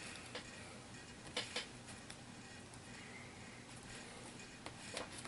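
A few faint, scattered clicks and light taps from small plastic miniature figures being handled and set down on a table.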